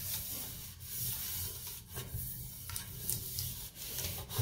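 Faint rubbing and scraping, with a few soft knocks.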